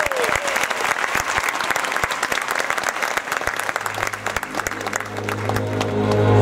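Audience applauding, the clapping thinning as a low droning music intro fades in and swells over the last couple of seconds.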